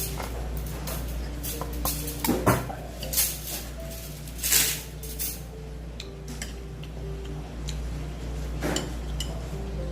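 A spoon clinking against a bowl of beef gukbap several times while eating, with the loudest clinks between about two and five seconds in and one more near the end.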